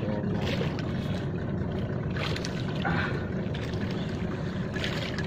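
Steady low rumble of wind and water around a small open fishing boat at sea, with a few faint brief knocks or splashes.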